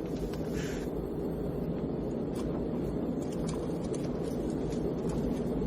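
Steady low rumble of a jet airliner's cabin in flight, with faint scattered clicks and a short hiss about half a second in.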